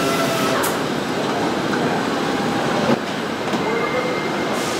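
Car assembly plant floor noise: a steady mechanical din of the body-line conveyor and machinery, with faint tones running through it. The din drops slightly and changes about three seconds in.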